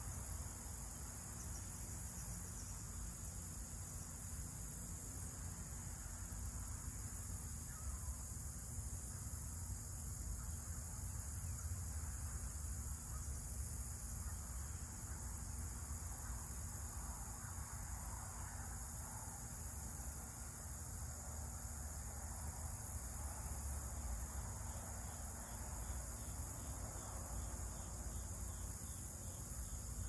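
Crickets chirping in a steady, unbroken high-pitched chorus, over a low rumble.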